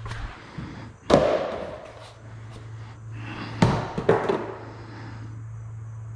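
Empty cardboard box being handled and tossed onto a hardwood floor: sharp cardboard knocks with short scraping tails, the loudest about a second in and two more around three and a half to four seconds in, over a steady low hum.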